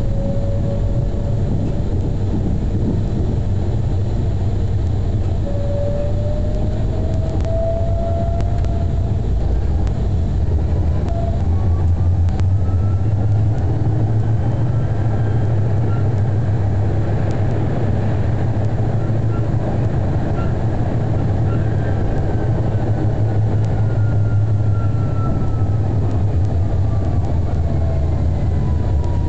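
Zurich VBZ tram running, heard from inside behind the driver's cab: a steady low hum with an electric motor whine that rises in pitch as the tram picks up speed, then falls again as it slows toward a stop near the end.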